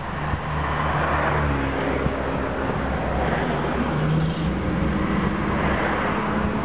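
A car driving along a city street: steady engine and road noise, the engine note rising and falling a few times.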